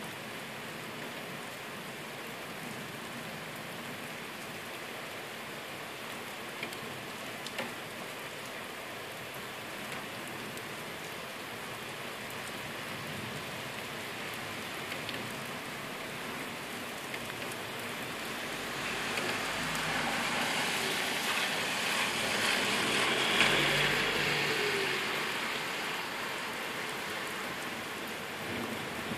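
Heavy rain falling during a thunderstorm: a steady hiss of rain on surfaces. About two-thirds of the way through, a louder surge of hiss builds, peaks and then fades again.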